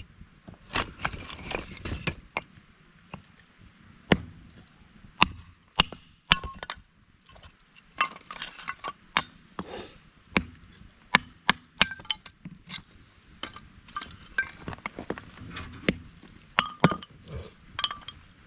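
Firewood being split: a long series of sharp chopping strikes on wood at irregular intervals, some with a short metallic clink.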